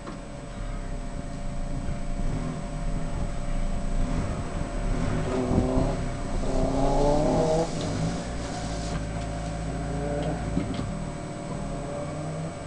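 Car engine heard from inside the cabin, running with the car stationary and revved up a few times around the middle, the pitch rising and falling before settling back to a steady idle.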